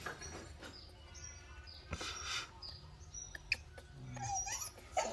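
High-pitched animal squeaks and chirps, with small clicks and one short whining call about four seconds in.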